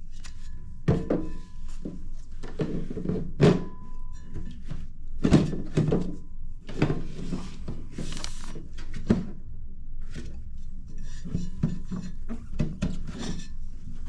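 Parts of a monitor stand being handled and fitted together: irregular knocks, thunks and clicks of hard pieces striking and sliding into place.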